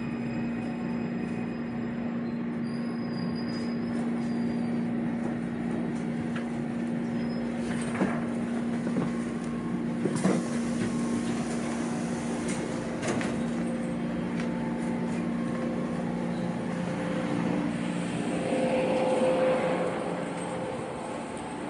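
Taipei Metro train running, heard from inside the car: steady rumble with a humming tone that shifts about two-thirds of the way through as the train slows into the station. A few sharp knocks along the way.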